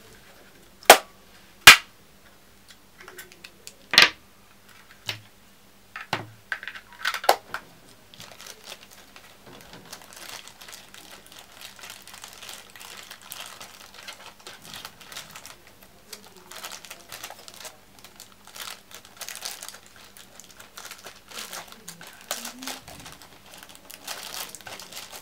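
A few sharp clacks from handling in the first few seconds. From about eight seconds in comes continuous crinkling and crackling of plastic bubble wrap as a TV remote is wrapped in it.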